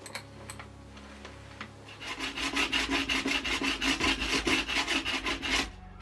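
A hand tool scrapes metal on a cast-iron hammerhead in quick, even strokes. The strokes start about two seconds in and stop shortly before the end, after a few faint handling clicks.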